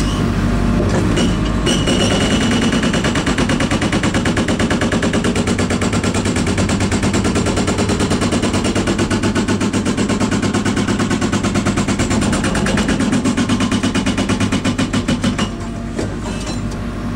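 INDECO hydraulic jackhammer hammering in a rapid, steady stream of blows, over the steady hum of the engine driving its hydraulic pump, which is throttled back to half to keep the oil flow from overdriving the hammer. The hammering starts about a second and a half in and stops shortly before the end, leaving the engine running.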